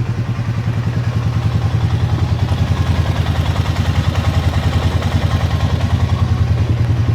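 2006 Honda Rubicon ATV's single-cylinder engine idling cold, with a steady, even pulse and a clicking clatter from the valve rocker arms. The owner says this noise is normal on these Hondas when cold and mellows out once hot.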